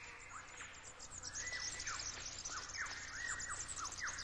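Birds calling: repeated short whistles that each drop quickly in pitch, coming in clusters over faint high chirping.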